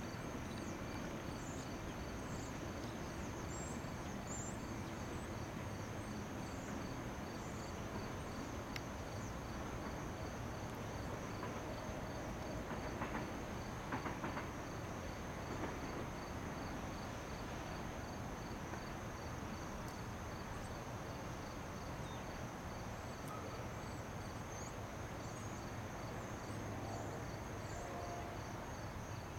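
Insects chirping in a steady, high-pitched pulsing rhythm, two overlapping chirps at slightly different pitches, over a low, even background rumble. A few faint clicks come about halfway through.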